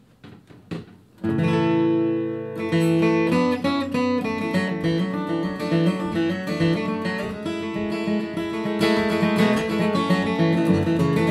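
Bourgeois Vintage D dreadnought acoustic guitar: after a few faint clicks, a chord is struck about a second in and left ringing, then strummed and picked playing carries on as a song's introduction.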